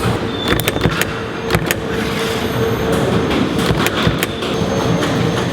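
Factory machinery running with a steady hum and scattered sharp clicks and knocks.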